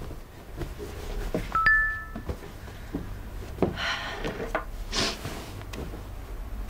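A short, bright phone notification chime, two tones ringing together for about half a second, a little under two seconds in. It is followed by soft rustling of clothing and fabric as the phone is picked up.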